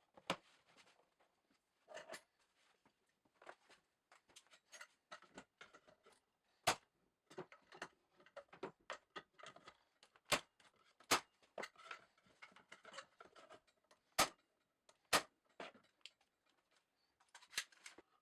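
Irregular sharp clicks and light knocks of small parts and tools being handled and set down, with softer rustling between them.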